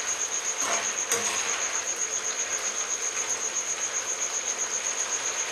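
A cricket trilling steadily in a fast, even pulse, the loudest thing heard, over the soft hiss of a curry simmering in a steel pan on high heat. A spoon scrapes the pan twice about a second in.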